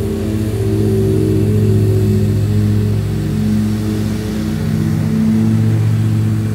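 Dixie Chopper zero-turn mower's engine running steadily under load, its low, even note dipping and picking up slightly as it works across the lawn.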